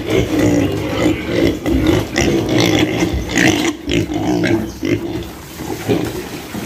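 A pen of piglets grunting and squealing together in a continuous chorus, hungry and waiting for their soaked bran.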